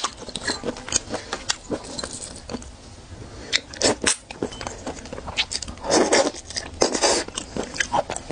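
Close-miked eating of shellfish: a gloved hand pulls at the shell, then comes biting and chewing with many small wet clicks, smacks and crackles. Louder sucking sounds come around six to seven seconds in.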